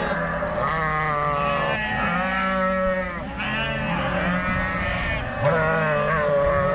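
A large flock of black-headed sheep bleating, many calls overlapping one after another without a break.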